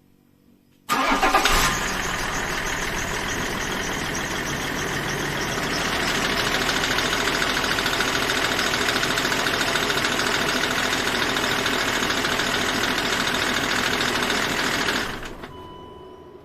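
BMW M57 straight-six diesel starting about a second in and idling, its running growing a little louder a few seconds after the start, then shut off near the end. The idle carries a metallic clatter that the owner says sets in 2–3 seconds after starting. He heard it through a stethoscope and does not think it is the timing chain. He cannot place it, though the drive belt, tensioner and an idler pulley were replaced shortly before.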